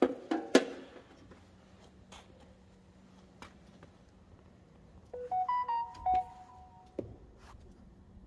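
A couple of sharp knocks at the start. About five seconds in comes a short electronic jingle of beeps stepping between a few pitches, lasting about two seconds. A faint steady hum runs beneath.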